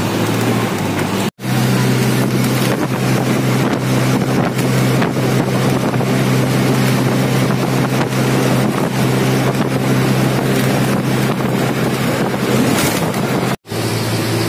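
Steady engine drone of a moving road vehicle heard from inside, mixed with loud wind and road rush from an open window. The sound cuts out completely for an instant twice, about a second in and near the end.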